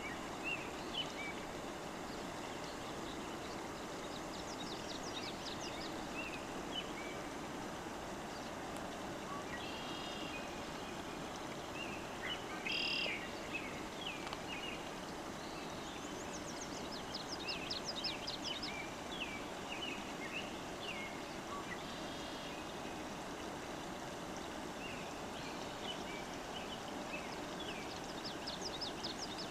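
Several songbirds chirping and trilling in short scattered phrases over a steady rushing background noise.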